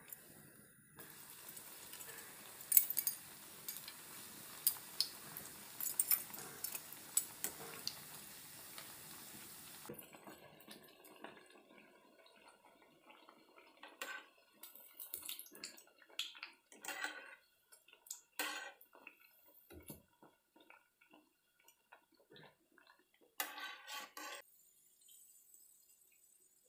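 Bread slices frying in hot oil in a steel pan: a steady sizzle dotted with crackles that drops away suddenly about ten seconds in. After that come quieter bubbling and scattered clinks and scrapes of metal tongs against the pan as the pieces are turned and lifted out.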